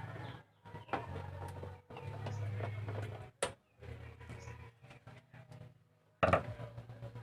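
A small motor hums in short stretches of about a second each, starting and stopping abruptly, with clicks and light rattles of parts being handled and a louder knock about six seconds in.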